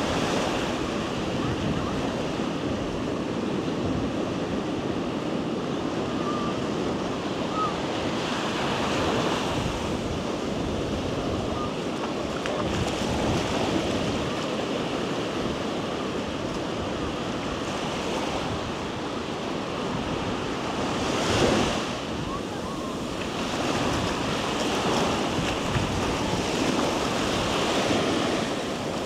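Ocean surf breaking and washing onto the beach in a steady rush that swells and ebbs, with one louder wave about two-thirds of the way in. Wind buffets the microphone.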